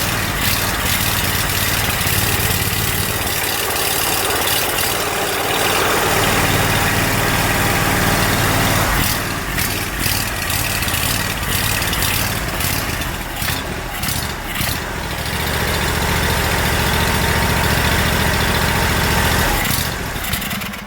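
Kawasaki FH580V 19 hp V-twin engine on a zero-turn mower running and smoothing out with the hole from its missing Welch plug covered; the open hole is what makes it surge and idle rough. The engine cuts off near the end.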